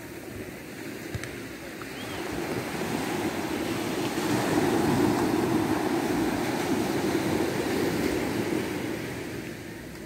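Small sea waves breaking and washing up a sandy beach. One surge of surf swells about two seconds in, is loudest around the middle, and eases off near the end.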